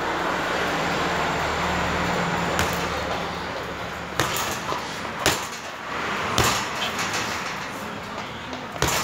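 Boxing-gloved punches landing on a hanging Windy heavy bag: about five sharp thuds at uneven intervals, the first about two and a half seconds in. A passing vehicle's steady rumble fills the first few seconds.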